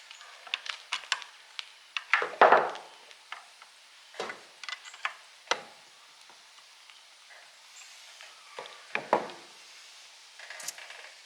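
Pry bars working against the mill's metal parts: scattered sharp metal clinks and knocks, with longer scraping strokes about two seconds in, around four seconds and near nine seconds, as he tries to free a bearing stuck tight on its shaft.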